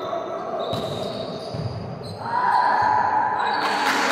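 A volleyball being struck and hitting the floor: three sharp slaps within a few seconds.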